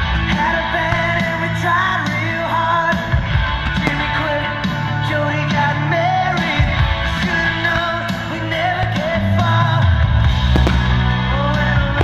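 Rock song with a singing voice over steady bass and guitar.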